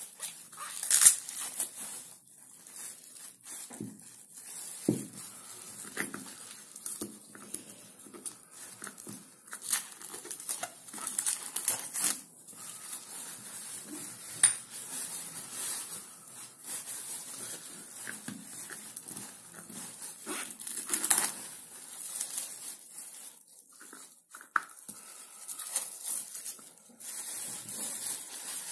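Plastic cling film crinkling and tearing as gloved hands unwrap the lids of plastic culture jars, with irregular sharp clicks and knocks from the jars and lids being handled on a hard surface.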